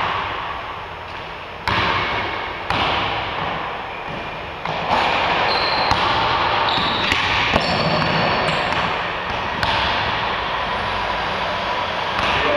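A basketball bouncing and being dribbled on a hardwood gym floor. Irregular thuds each ring out in a long echo through the hall, with a few short, high sneaker squeaks in the middle.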